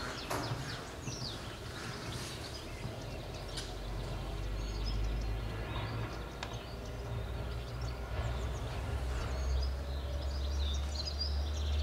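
Outdoor ambience of small birds chirping over a steady low rumble that grows stronger in the second half, with a few faint clicks.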